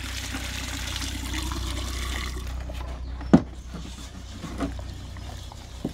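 Water poured from a bucket down a pipe into a metal dustbin of quicklime and sand, feeding the water to the bottom of the mix for slaking; the pouring stops about two and a half seconds in. A sharp knock follows about a second later, then a softer one.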